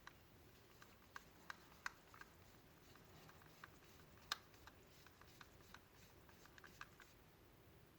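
Faint, irregular small clicks and taps of plastic clipper parts and screws being handled and fitted together, with one sharper click about four seconds in.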